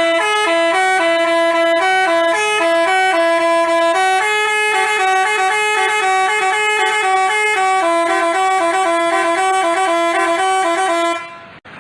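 Telolet basuri musical bus horn playing a fast tune of short, clear notes, often two at a time, then cutting off near the end.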